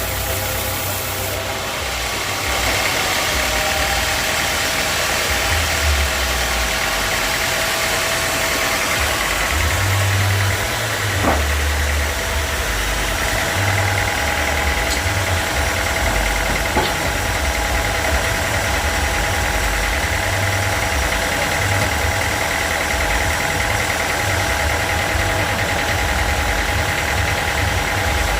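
Sawmill machinery running steadily, a loud engine-like hum with a low rumble, with two short sharp knocks a few seconds apart near the middle.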